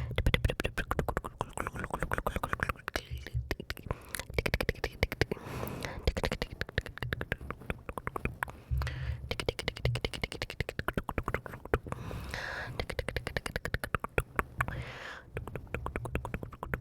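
Close-mic ASMR mouth sounds: a fast, dense run of wet mouth and tongue clicks, many per second, broken by a couple of short breathy sounds.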